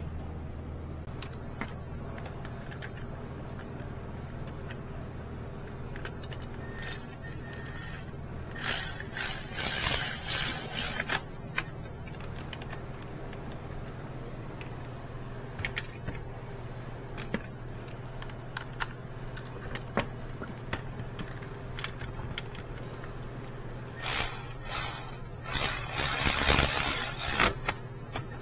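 Metal tools and hardware rattling and scraping during repair work, in two loud spells a few seconds long, about a third of the way in and near the end, with scattered small clicks over a steady low hum.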